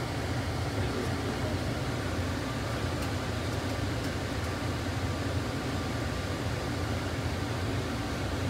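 SFO AirTrain rubber-tyred people mover running along its guideway, heard from inside the car: a steady low rumble with an even hiss over it.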